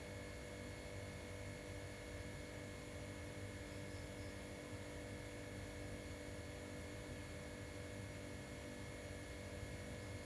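Steady, even hum with a faint hiss and a few fixed high tones, unchanging throughout, with no distinct knocks or events.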